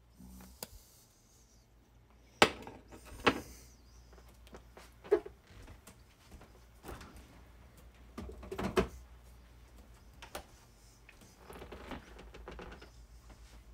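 Scattered knocks and clicks of things being handled in a kitchen, over a faint steady low hum.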